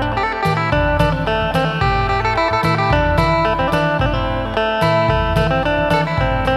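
Phin (Isan lute) amplified through a contact pickup, picking a fast melody of quick repeated notes over low notes.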